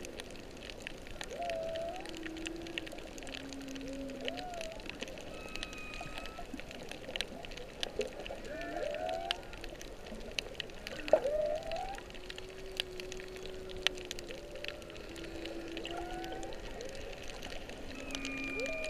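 Humpback whale song recorded underwater: a slow string of low held moans, rising and falling whoops, and a few higher thin tones. Fine clicks crackle throughout, and a sharp upswept call about eleven seconds in is the loudest moment.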